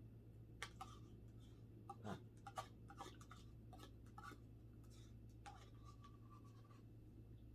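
Near silence with a steady low hum, broken by a dozen or so faint, scattered light clicks and taps.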